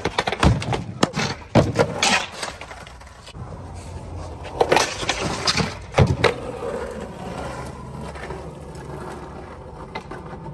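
Skateboard clattering and slamming on concrete and a plywood kicker ramp as the skater bails, with more sharp board knocks about five and six seconds in when the ramp is ridden again. After that, skateboard wheels rolling on rough pavement.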